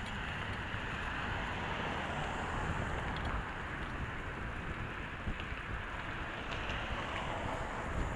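Steady rush of wind and road noise on a handlebar-mounted action camera's microphone while cycling, with a low rumble from the tyres on the pavement and a few faint ticks.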